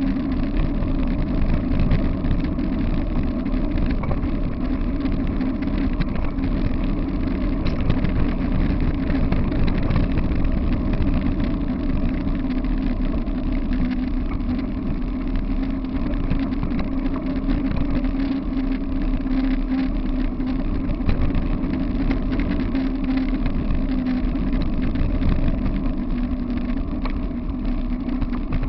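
Steady wind buffeting on the microphone and tyre rumble from a dog-pulled wheeled rig moving along a paved path, with small rattles from the rig throughout.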